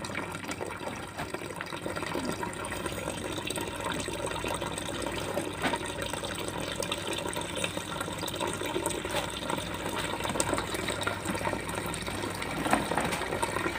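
Water running from a hose into a basin of muddy ore slurry, a steady splashing flow.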